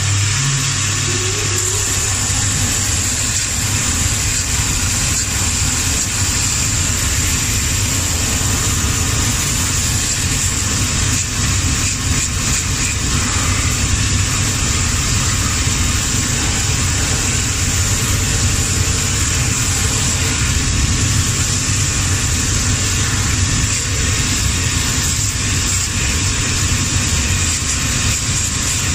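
Cobbler's shoe-finishing machine running steadily, a low motor hum under a high hiss, while a shoe's sole is held against its sanding band to break the old sole stitches and sand the heel nails flat.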